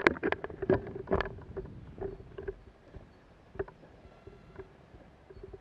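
A quick flurry of sharp, irregular knocks and clatters in the first second and a half, then a few scattered single knocks, from the player's gear and movement on the woodland ground, over a faint steady hum.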